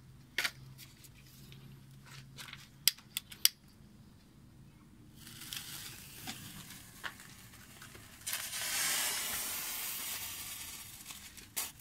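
A few sharp clicks, then a fizzing hiss from about five seconds in as the spark is put to the pile. About eight seconds in the thermite catches: a loud rushing hiss of burning thermite that slowly fades.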